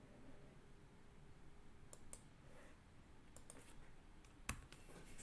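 A few faint, scattered clicks of a computer keyboard and mouse over near silence, the loudest about four and a half seconds in.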